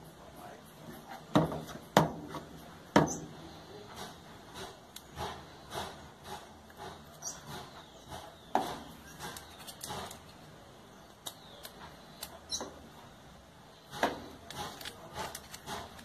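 Small metal clicks, knocks and scraping as a spring is worked by hand onto an Electrolux Turbo Econômica washing machine's suspension rod. The knocks are irregular, with a few sharper ones in the first three seconds, one near nine seconds in and one near fourteen seconds.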